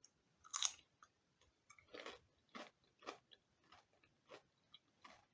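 A person biting into a crisp lightly salted cucumber, one sharp crunch, then chewing it with a steady rhythm of about two chews a second.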